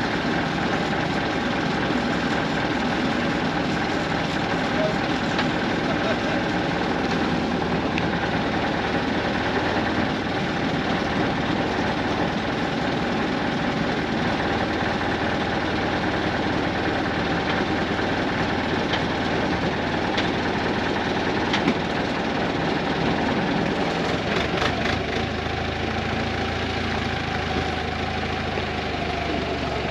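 Telehandler's diesel engine running steadily as the machine lifts and moves a heavy load, its note changing in the last few seconds.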